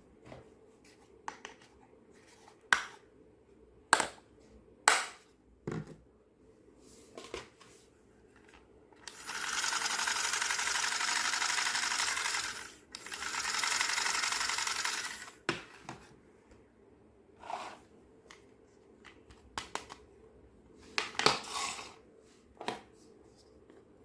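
Small hard plastic toy pieces clicking and tapping as they are handled and set down. In the middle come two steady hissing stretches of about three seconds each, with a short break between them.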